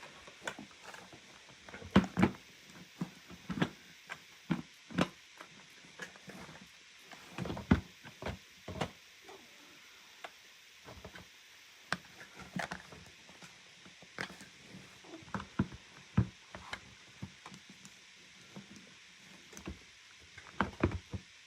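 Irregular knocks and clicks of hard plastic parts being handled and pushed together while a loose piece of a Hoover vacuum cleaner is being refitted.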